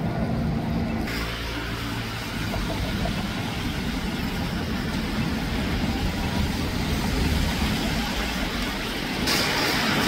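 Road traffic: motor vehicles running and passing in a steady wash of noise, with a low engine hum in the first couple of seconds and a hissier rise near the end.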